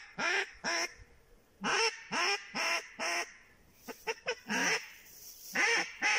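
Wild waterfowl calling: loud nasal quacking-honking calls, each under half a second, in runs of about two a second, with a quicker flurry of shorter calls about four seconds in.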